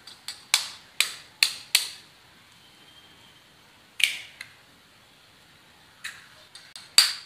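A knife blade tapped against an egg's shell to crack it: five sharp taps about half a second apart, a single click about four seconds in, then another quick run of taps near the end as the next egg is cracked.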